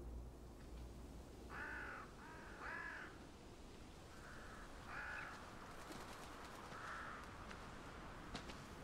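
Crows cawing: three harsh caws in quick succession about two seconds in, then fainter caws spread out after them.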